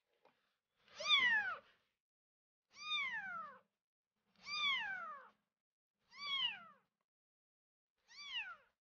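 A very young kitten mewing five times, each call about half a second long and falling in pitch, with pauses of a second or so between them.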